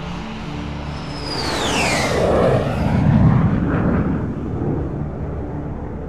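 Sci-fi spaceship sound effect passing overhead: a high whine glides steeply downward about a second in. A deep rumble follows, swelling to its loudest around three seconds in, then dies away over a steady low hum.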